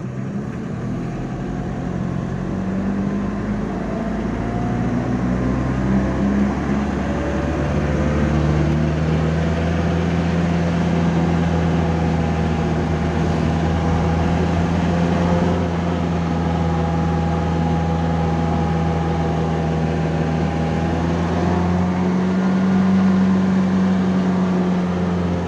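A road vehicle's engine running steadily while under way. Its revs climb over the first several seconds, then hold even, with a small rise again near the end.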